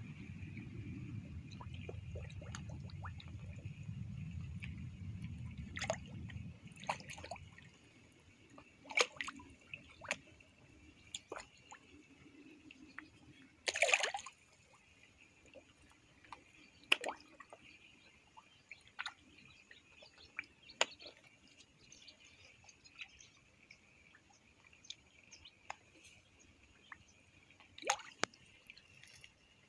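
Koi and goldfish feeding at a pond's surface, sucking in floating food pellets with irregular wet pops and smacks, the loudest about halfway through. A low rumble fades out in the first several seconds, and a faint steady high hum runs underneath.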